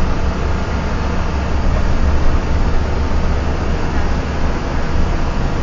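Steady low rumble of a bus's engine and road noise, heard from inside the cabin while it is driving along.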